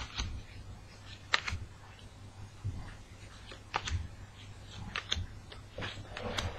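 Trading cards being handled and flipped through: a scatter of sharp clicks, the clearest about a second and a half in, near four seconds, around five seconds and past six seconds, with soft rustling between.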